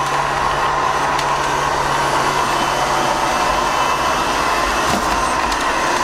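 Tsukamoto AIM-RC03 mini robot vacuum cleaner running: its motors give an even whir with a steady low hum underneath, and a couple of faint ticks as it travels.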